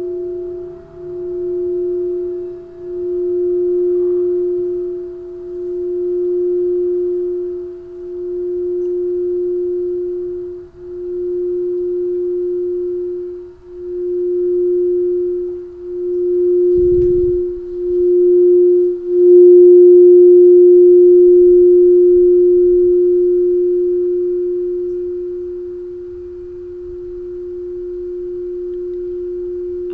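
A crystal singing bowl sounding one pure, steady tone, its volume swelling and dipping every two to three seconds as it is rubbed around the rim. About two-thirds of the way through it is struck, so it rings at its loudest and then slowly fades, with a soft low thump just before.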